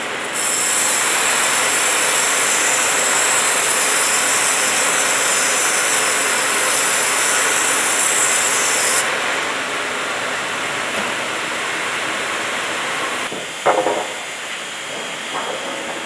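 Band resaw blade cutting lengthwise through a teak plank: a loud, steady high hiss that starts about half a second in and stops abruptly about nine seconds in. Steady sawmill machinery noise carries on, quieter, after the cut ends.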